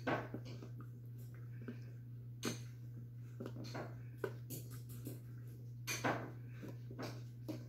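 Poodle puppy chewing a Kong Squeezz Crackle Bone, the toy giving off irregular crinkly crackles and clicks as its jaws work it. Louder cracks come at the start, about two and a half seconds in, and again about six seconds in.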